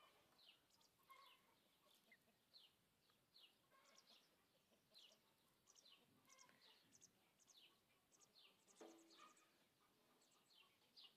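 Faint bird chirping: many short, downward-sliding chirps, one or two a second.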